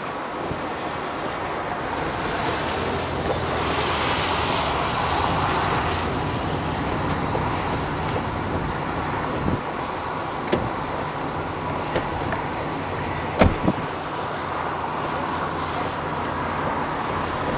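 Steady road and engine noise heard from inside a moving vehicle, swelling for a couple of seconds about four seconds in, with a few short sharp knocks near the middle.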